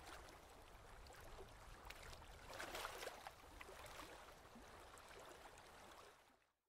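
Faint water lapping and sloshing with small splashes, as around a boat, fading out near the end.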